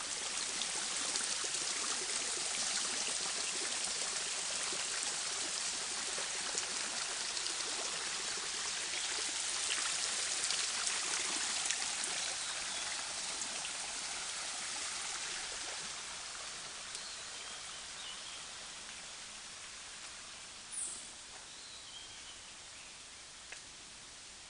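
Shallow stream running over pebbles: a steady rushing trickle that slowly fades over the second half. A brief high chirp sounds once near the end.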